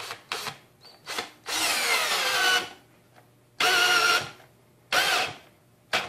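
Kimo 20V cordless drill driver driving a long deck screw into wood in a series of short stop-start runs, about six, the longest about a second long with the motor's pitch falling under the load. The drill keeps cutting out under the strain, which the owner takes for its built-in heat protection kicking in.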